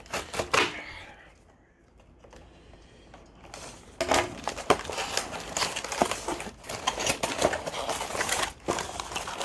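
Packaging being handled while a toy is unboxed: a few clicks, a near-quiet pause, then from about four seconds in continuous crinkling and rustling with sharp clicks and knocks.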